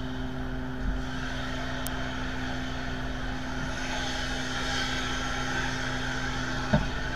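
Jet engines of a Boeing 737 airliner running steadily at idle: a constant hum with a high whine that swells a little around the middle. A short knock comes near the end.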